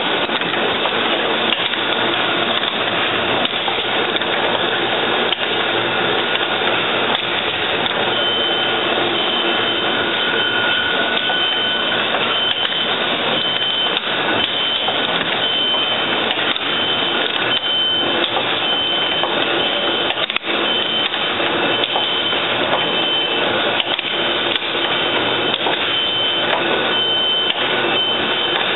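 Automatic hypodermic needle assembly machine running: a steady, dense clatter of rapid mechanical ticks and clicks. From about a third of the way in, a high electronic beep repeats in short pulses, a little under once a second.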